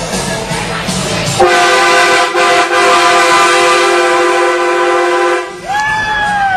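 Vehicle-mounted train horn blasting a single steady chord of several tones for about four seconds, starting about a second and a half in and cutting off suddenly.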